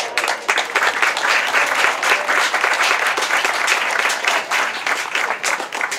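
A crowd applauding, with many hands clapping in a dense, steady patter.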